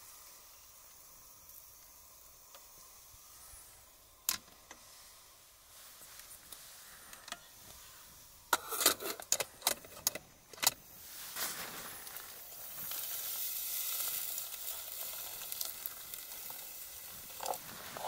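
Metal Trangia pans clinking and knocking in a quick cluster about halfway through, then a hissing sizzle from the pan on the stove that builds and holds to the end.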